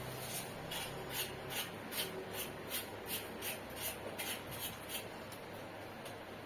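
Knife blade scraping the skin off a pointed gourd (parwal) in short rasping strokes, about three a second, stopping about five seconds in. The skin is being scraped only lightly, not fully peeled.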